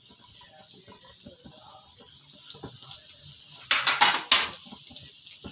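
Dough rings deep-frying in hot oil in a steel pan: a steady sizzle with small crackles. A little under four seconds in comes a short, louder burst of clatter and scraping as a utensil works against the pan.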